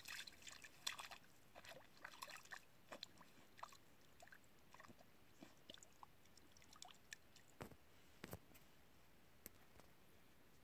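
A dog's paws splashing and sloshing in shallow water lying over ice for the first couple of seconds, then only sparse faint ticks and drips.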